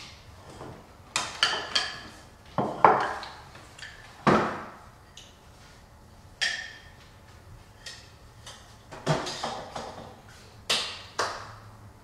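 Dishes clattering: a ceramic bowl and spoon knocked and clinked, in an irregular string of about a dozen sharp clinks with short ringing, the loudest about three to four seconds in.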